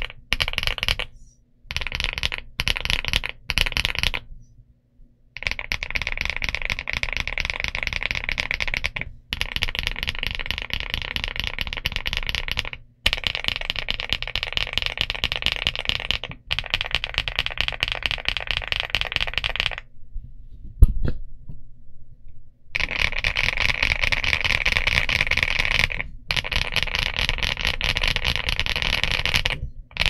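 Elec Fox Inky75 mechanical keyboard typed on fast, its keys clacking in long runs broken by brief pauses. A single louder knock about two-thirds of the way through.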